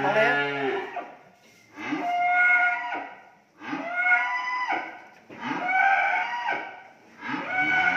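Cattle mooing over and over: about five drawn-out calls, each roughly a second long, coming about every two seconds.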